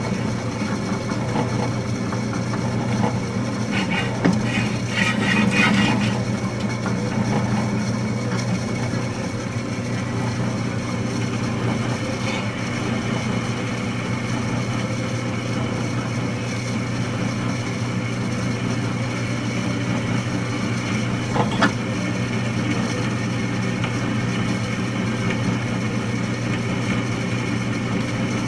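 Bench drill press running with a steady motor hum while a 3/8-inch bit cuts into a metal bracket bar. The cutting gets louder and harsher for a couple of seconds about four seconds in, and there is one sharp click about three-quarters of the way through.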